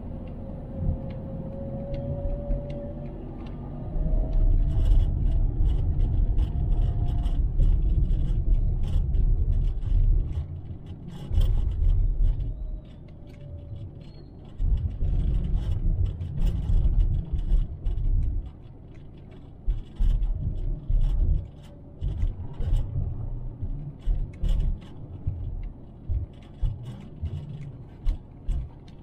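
Car driving on town streets: a low rumble from the road and vehicle that surges and drops in uneven bursts, with light clicks and rattles scattered through.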